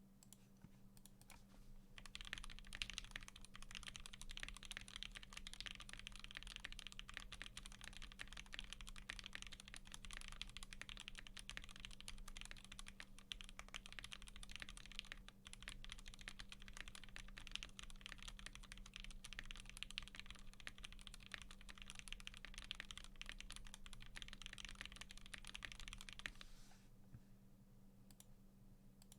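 Continuous fast typing on a custom mechanical keyboard: lubed Gateron Box Black Ink linear switches on an aluminium plate in an acrylic Tofu65 case with no foam, under PBT keycaps. The typing starts about two seconds in and stops a few seconds before the end.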